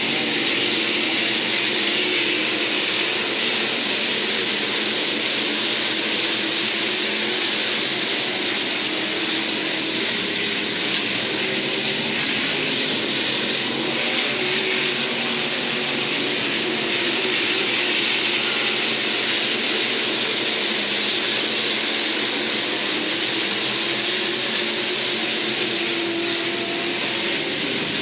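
A field of IMCA SportMod race cars' V8 engines running hard around a dirt oval: dense, continuous engine noise whose pitches waver up and down as the cars accelerate and lift through the turns.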